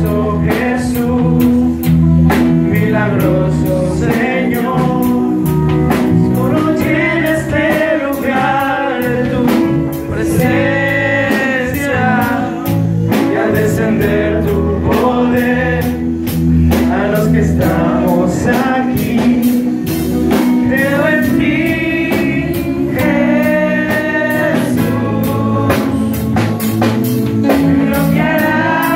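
Live gospel worship band playing: singers with a drum kit keeping a steady beat, bass guitar and keyboard.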